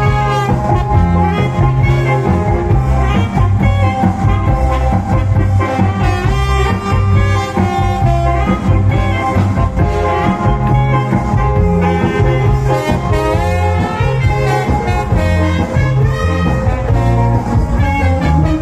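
Loud cha-cha dance music with a heavy bass line and brass melody, played over a large sound system.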